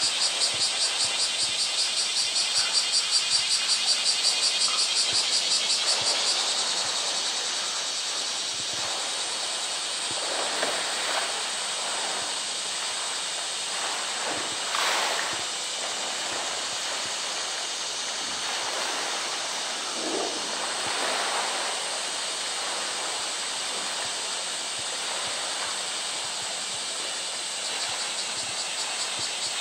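Pool water sloshing and splashing as a polar bear swims and pushes a plastic drum, over the steady rush of a water spout falling into the pool; a few louder splashes come about ten, fifteen and twenty seconds in. A high, fast-pulsing drone sounds for the first six seconds.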